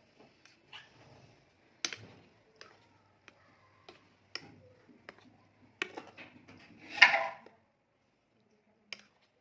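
Scattered light clicks and taps of kitchen utensils and containers being handled, with one louder, noisier sound about seven seconds in that lasts about half a second.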